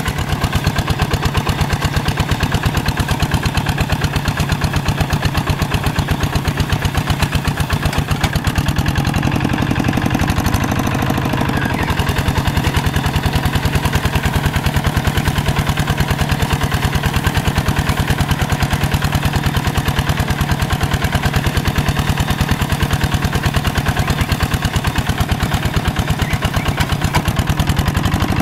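Single-cylinder diesel engine of a Quick two-wheel hand tractor running steadily under load, a rapid, even chugging, as it drags its cage wheels and plough through a wet, stubbly rice paddy.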